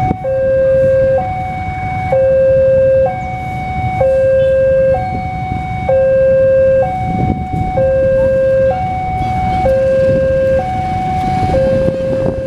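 Electronic two-tone warning alarm, alternating a lower and a higher tone about once a second, over the low rumble of a CC203 diesel locomotive pulling a passenger train slowly out of the station.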